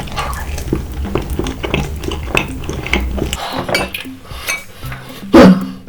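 Utensils clicking and clinking against dishes in a quick, uneven run of small clicks, with one louder knock about five seconds in.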